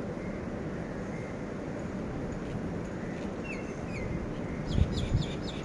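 Steady gusty wind rumbling on the microphone during a sandstorm. A bird calls a couple of short chirps about midway, then a quicker run of higher calls near the end, while two sharp low thumps of wind buffeting the microphone are the loudest sounds.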